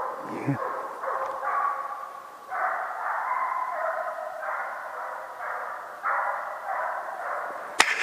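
Estonian hound baying in long repeated runs: the hound giving tongue as it runs a white hare on the scent. A few sharp clicks near the end.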